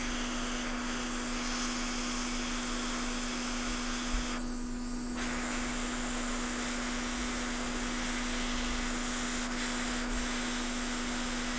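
Hot air rework station blowing a steady hiss over a constant low hum, heating off underfill residue on a phone logic board. The hiss dips briefly about four and a half seconds in.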